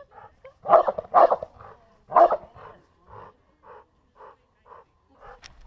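American Bully dog barking close to the microphone: a few loud barks in the first couple of seconds, then a regular run of shorter, fainter barks about two a second.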